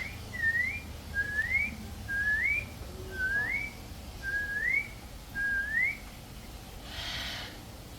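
A whistle repeated seven times, about once a second, each short note sliding upward in pitch. A brief rush of breathy noise comes near the end.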